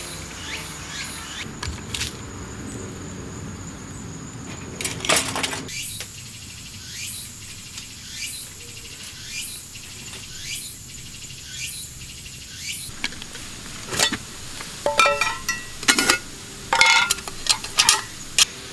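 A short, high, falling chirp repeated about once a second, from a calling bird or insect. Near the end, a run of sharp light clicks and clinks.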